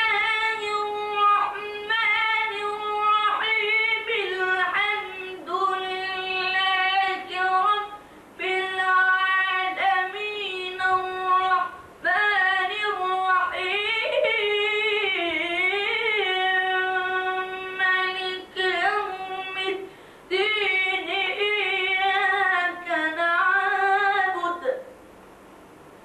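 A boy reciting the Quran in the melodic, chanted style: long held notes with ornamented turns in pitch, sung in phrases with short pauses for breath. The voice stops about a second before the end.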